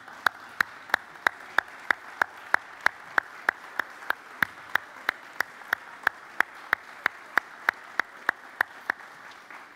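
A congregation applauding, with one person's hand claps close to the microphone standing out: loud, steady, about three a second.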